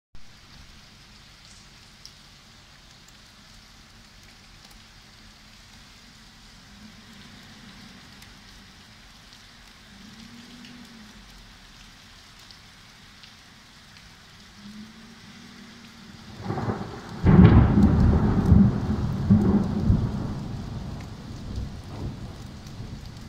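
Steady rain falling on a wet street. About three-quarters of the way through, a loud thunderclap breaks in and rumbles with several peaks for a few seconds before slowly fading.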